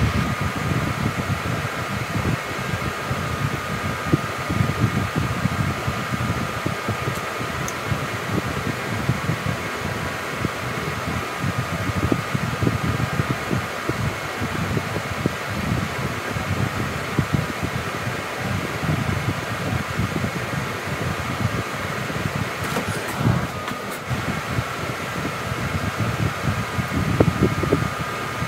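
A fan running steadily: a constant hum with a few fixed whining tones over a low, fluttering rumble of moving air.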